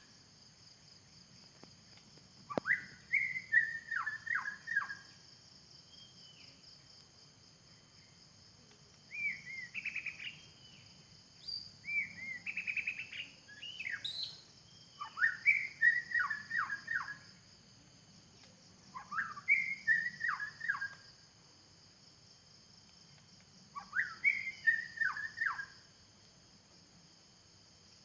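White-rumped shama singing: six short phrases of clear whistled notes, mostly sliding downward, with pauses of a few seconds between them. A steady high insect drone runs underneath.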